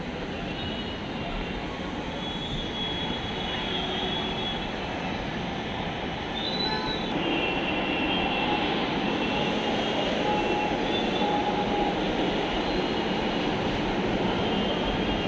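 A Delhi Metro train running on the elevated track: a steady rumble with thin high wheel squeals that come and go, getting gradually louder.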